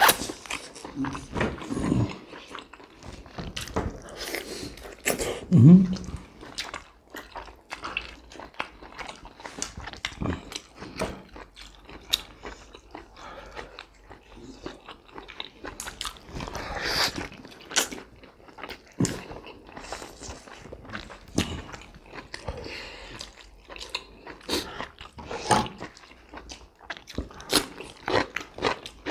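Close-miked eating of large steamed pork momos: biting and wet chewing, heard as a steady run of short mouth clicks and smacks. About six seconds in comes a brief vocal sound, the loudest moment.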